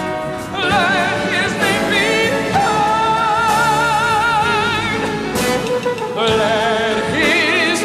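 Music: a hymn of praise sung with a strong vibrato, held notes shifting pitch, over a steady accompaniment.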